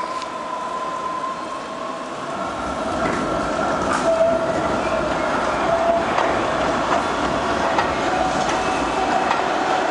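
Articulated low-floor city tram running past on street track, a rumble with a high whine that wavers slightly in pitch. It grows louder about three seconds in as the tram draws close.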